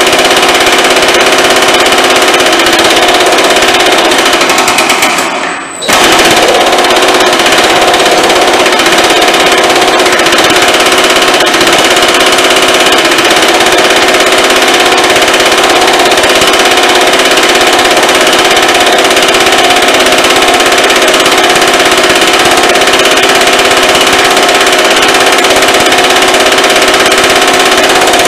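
Baileigh MH-19 power hammer running with planishing dies, pounding a sheet-metal panel in a fast, continuous rattle of blows to smooth out shrink marks. About five seconds in, it slows and stops for a moment, then starts again.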